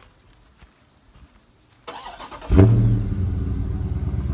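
Dodge Charger's 392 Hemi V8 cranking briefly and starting about two and a half seconds in. It flares loudly as it catches, then settles into a steady idle.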